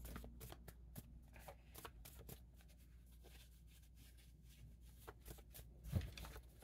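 A deck of reading cards being shuffled and handled by hand: faint, quick card flicks and rustles. They thin out in the middle and pick up again with a louder rustle near the end.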